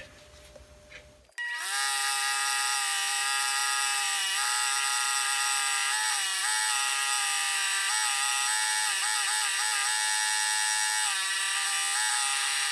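Motor-driven wire wheel brush running steadily while rusty chrome sockets are cleaned on it. It starts abruptly about a second and a half in, and its whine dips in pitch briefly several times as the sockets are pressed against it.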